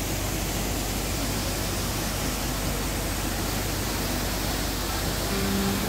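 A steady, even rushing noise with no breaks or rhythm.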